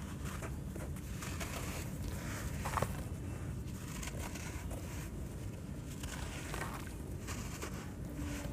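Water-soaked charcoal sand-cement chunks crumbling in hands under water, with gritty crunching and the small splash and trickle of falling pieces. One louder crack just under three seconds in.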